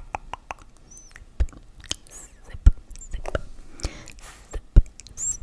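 Close-microphone ASMR trigger sounds: an irregular string of sharp clicks and taps, with a few soft hissy rustles and brief high chirps between them.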